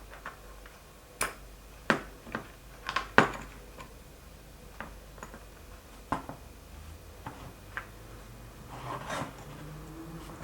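Metal parts of a helping-hand soldering stand clicking and knocking as it is handled and assembled. A cluster of sharp knocks comes in the first few seconds, the loudest about three seconds in, followed by scattered lighter clicks.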